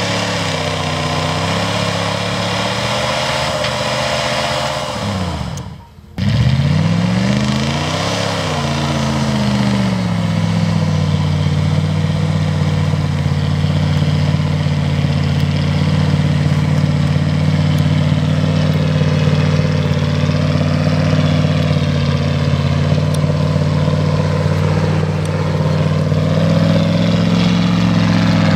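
Jeep Grand Cherokee engine revving up and down under load as it pushes through deep snow, with a brief break about six seconds in, then held at steady high revs while the tyres spin.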